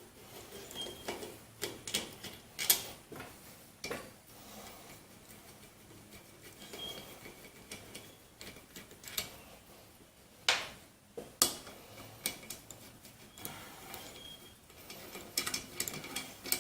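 Scattered light clicks and clinks of small metal parts and tools being handled on a workbench, the removed sump-cover bolts being set down one at a time, with a few sharper knocks.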